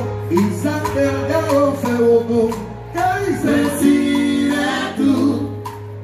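Live salsa band playing, with voices singing over the bass, piano and percussion.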